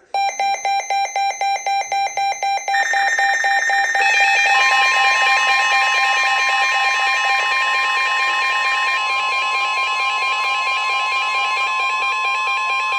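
A weather radio's warning alarm sounds for a severe thunderstorm warning. It starts as rapid beeping, about four beeps a second, then turns into a continuous alarm, with a steady single tone joining it about four seconds in: the NOAA Weather Radio warning alert tone.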